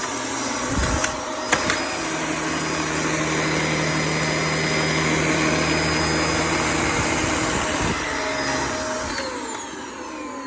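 Dyson DC24 upright vacuum cleaner running with its repaired roller brush spinning, after a couple of clicks about a second in. About nine seconds in it is switched off and the motor's whine falls as it winds down.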